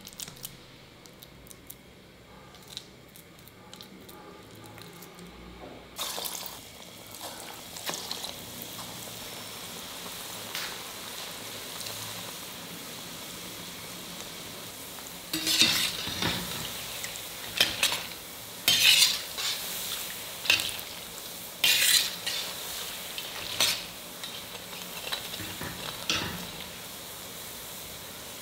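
Keerai bondas (spinach and gram-flour fritters) deep-frying in hot oil with a steady sizzle. From about halfway on, a steel skimmer clinks and scrapes sharply against the steel pan. Before the sizzle starts, only faint soft sounds of hands mixing the batter in a steel bowl.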